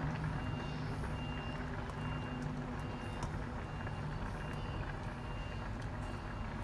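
A vehicle's reversing alarm giving short high beeps, evenly spaced about every half second, over a steady low engine hum.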